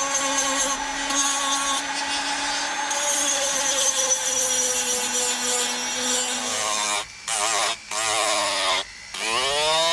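Handheld rotary carving tool whining steadily as its bit grinds into a wooden carving blank, the pitch sagging slowly under load. About seven seconds in it cuts out briefly a few times, then spins back up with a rising whine.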